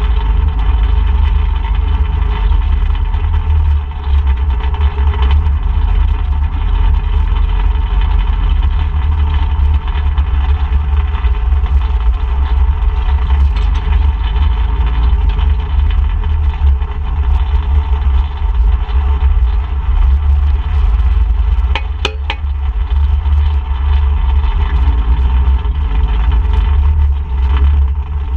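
ATV engine running steadily during a trail ride, under a heavy low rumble. A short cluster of sharp knocks comes about three-quarters of the way through.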